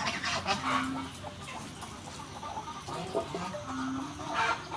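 Chickens clucking now and then, with light clinks and a clatter near the end as a steel pot is set onto a clay charcoal stove.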